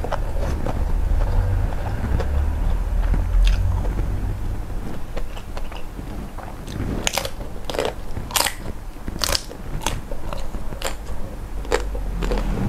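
Close-miked chewing of shell-on prawns, with a run of sharp crunches of the shells in the second half.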